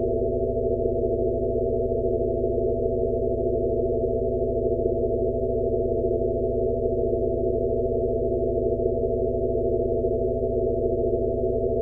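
Generated Rife-frequency sound-therapy tones: a steady, low-pitched electronic drone of several held tones over a soft wash of noise, with nothing bright above it. A faint pulse comes about every second and a quarter.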